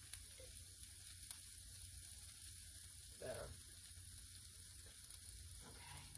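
Diced onion, carrot and celery sizzling in oil in a nonstick frying pan, a faint, steady frying hiss.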